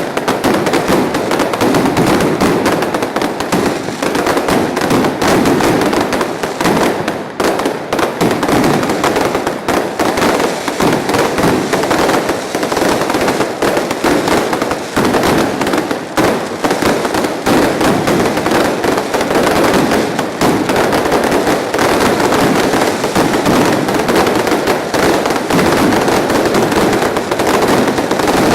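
Fireworks and firecrackers going off in a dense, unbroken crackle of overlapping bangs, loud and steady without a pause.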